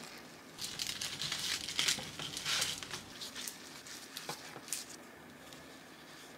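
A bamboo sushi rolling mat and the dry laver sheet inside it rustling, crinkling and clicking as a kimbap roll is rolled up and squeezed tight by hand. The rustling is busiest in the first half, then thins to a few scattered clicks before stopping.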